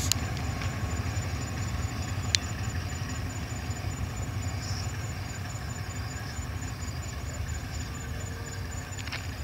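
D10H diesel-hydraulic locomotive's engine running low and steady as it rolls slowly, shunting freight wagons. A single sharp click comes a couple of seconds in.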